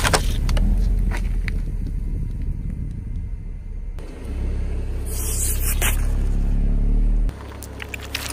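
Car rolling slowly over asphalt with a steady low engine and tyre rumble. Crackling near the start as the tyre crushes plastic cups of foam beads, and a sharp burst of crackling about five to six seconds in as it rolls onto balls.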